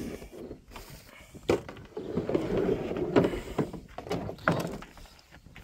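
Stihl MS 260 chainsaw being lifted out of its hard plastic carrying case and set down: scraping and rattling of plastic, with three sharp knocks.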